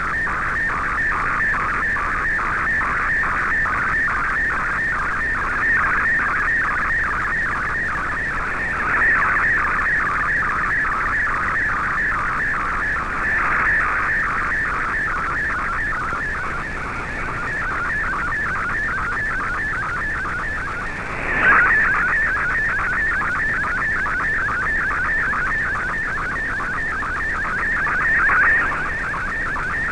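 Shortwave digital picture transmission in MFSK64 image mode, decoded by Fldigi: a warbling data tone between about 1 and 2 kHz, repeating in a fast even rhythm of a few strokes a second as the image is sent line by line, over a hiss of static. A brief burst of noise interrupts it about two-thirds of the way through.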